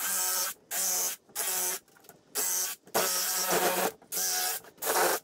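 Cordless jigsaw cutting plywood in short bursts, started and stopped about eight times as it follows a curved line traced from a template.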